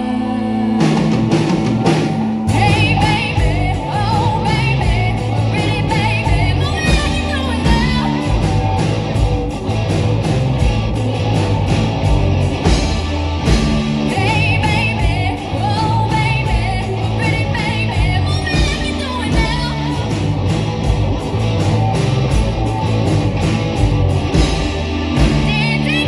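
Live rock band: a girl singing lead over electric guitars and drums. The band comes in about a second in and gets heavier a second or so later.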